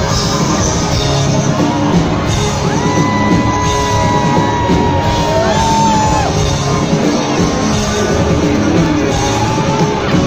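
Rock band playing live, electric guitar over drums and keyboards. A long high note is held from about three seconds in until about six seconds, bending down as it ends.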